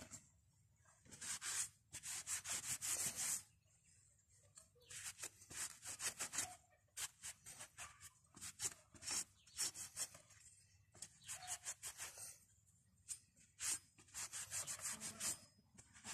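A cloth rubbing and wiping an iron adze head in runs of quick strokes with short pauses between, cleaning off the black residue left by electrolytic rust removal.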